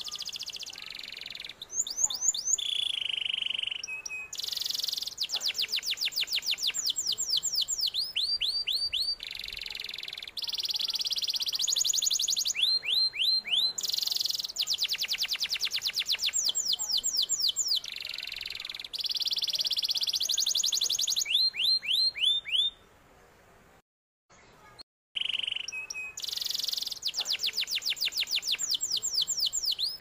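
Domestic canary singing a long, fast song of rapid trills and rolls, runs of quick downward-sweeping notes and held buzzy notes. A short silence falls about three quarters of the way through before the song resumes.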